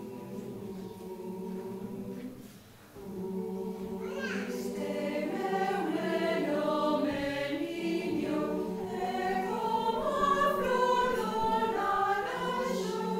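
Mixed choir of men and women singing a Galician lullaby (canto de berce). A held chord opens, breaks off briefly about two seconds in, then the higher voices take up a moving melody over steady lower notes, growing louder.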